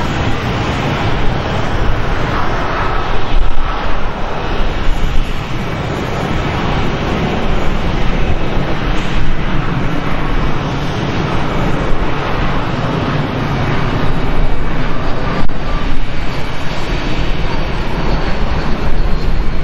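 Airbus A320-232 on final approach, its two IAE V2500 turbofans giving a steady, loud jet rush with a heavy low rumble as it descends toward the runway.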